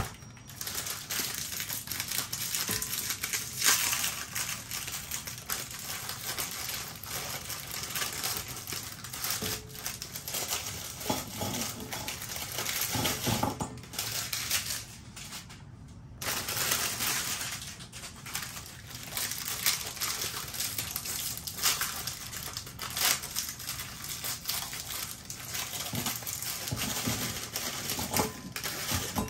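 Oreo cookies being pounded and crushed into crumbs in a glass bowl with a hand tool: irregular crunching and knocking, with a short pause about halfway.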